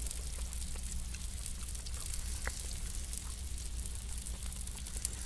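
Faint sizzling and a few scattered crackles from the coals of a beach fire, with scallops cooking on them in butter, over a steady low rumble.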